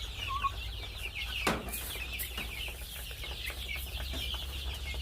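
Chickens calling: a steady chorus of many short, high peeps and clucks overlapping. A single sharp knock sounds about one and a half seconds in.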